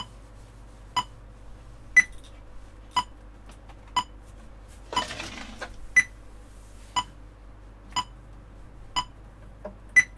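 Metronome clicking steadily at one beat a second (60 BPM), with a louder accented click every fourth beat marking the start of each 4/4 bar. A short rustle about five seconds in.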